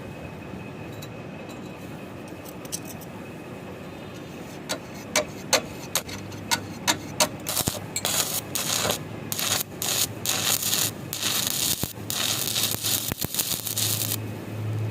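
A few sharp metallic clicks and clinks, then several seconds of stuttering crackle over a low electrical hum, typical of short electric arc welding tacks on a steel pipe.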